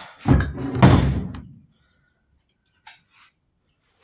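Two heavy thuds about half a second apart, with a brief ring after, from the heavy steel ripper attachment being shifted and set down, followed by a couple of faint clicks.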